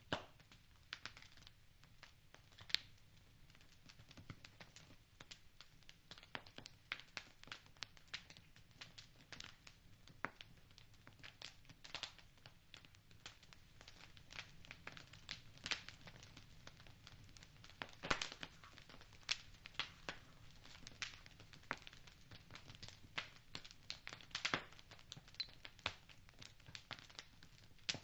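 Wood fire crackling in a fireplace: irregular sharp pops and snaps over a faint low hiss, with a cluster of louder pops about two-thirds of the way through.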